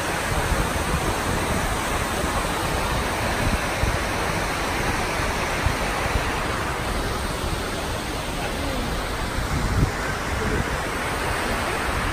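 Steady rush of water pouring down the walls of the 9/11 Memorial reflecting pool, an even roar of falling water.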